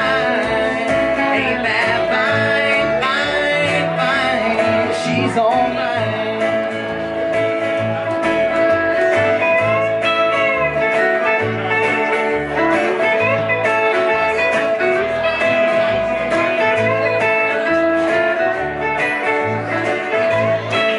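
Live country band playing an instrumental passage: electric guitar with bent notes over plucked upright bass and acoustic guitar.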